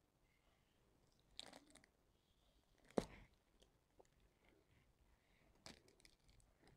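Near silence broken by three short taps or clicks, about one and a half, three and five and a half seconds in, the middle one the loudest.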